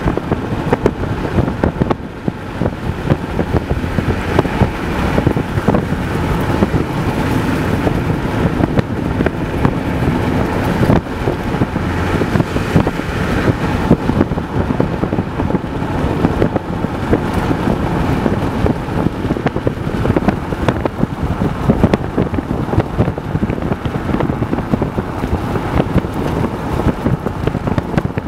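A car driving along, with steady road and engine noise and wind buffeting the microphone in gusts.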